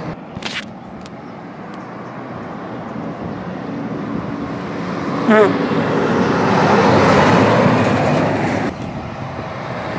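Diesel semi truck with a flatbed trailer approaching and passing close by, engine and tyre noise growing louder to a peak about seven to eight seconds in, then dropping off suddenly as it goes by.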